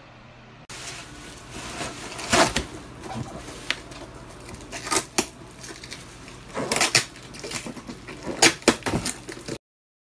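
Irregular handling noise from a cardboard wall-fan box: scraping and rustling with scattered sharp knocks and clacks. The loudest come about two and a half seconds in, around five and seven seconds, and in a quick run near the end, then it cuts off suddenly.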